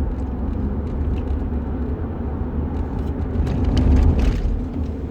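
Steady low rumble of a running vehicle, swelling louder with a rush of hiss about four seconds in.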